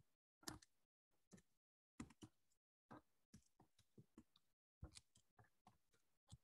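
Faint typing on a computer keyboard: short clusters of key clicks, a few keystrokes at a time, with brief pauses between words.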